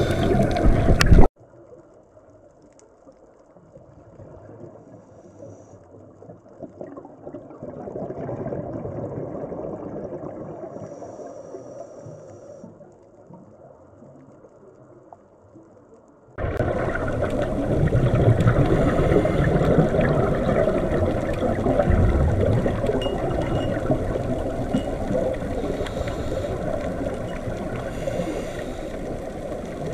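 Underwater ambience: a steady low water noise that drops suddenly to a faint murmur about a second in, then cuts back up to a louder steady level about sixteen seconds in.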